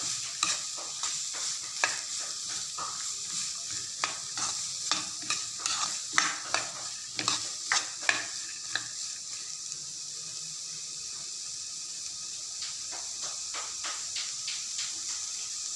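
Diced carrots and green beans sizzling in ghee in a non-stick kadai. A spatula stirs them in quick scraping strokes for the first nine seconds or so, then the sizzle runs on steadily, with a few more strokes near the end.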